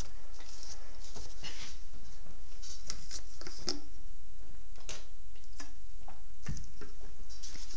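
Scattered light scratches and small taps of charcoal sticks and drawing tools being handled on paper, over a steady low hum.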